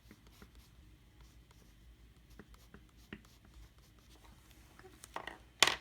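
White colored pencil scratching on sketchbook paper in short strokes, drawing veins on the petals: faint scattered strokes at first, then a few louder scratchy strokes near the end.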